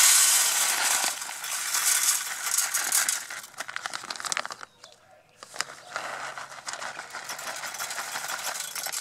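Green coffee beans pouring from a plastic zip bag into a stainless steel flour sifter: a dense clatter of small hard beans striking the metal and each other, with the bag crinkling. The pour stops for about a second near the middle, then starts again.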